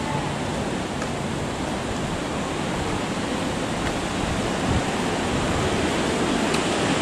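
Steady rush of a waterfall, growing slowly louder toward the end.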